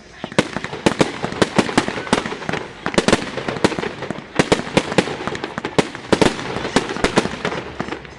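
Fireworks display: a rapid, continuous volley of sharp bangs and cracks, several a second, as comets and shells are fired and burst overhead. It picks up in loudness about half a second in and keeps up without a pause.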